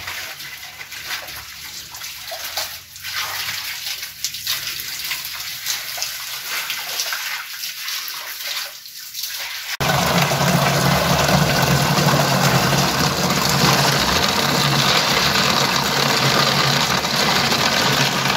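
Water from a hose rinsing the last coffee beans out of a concrete washing tank, splashing unevenly. About ten seconds in it gives way to a loud, steady gush of rinse water pouring into a cut-open plastic jerry can that catches the beans.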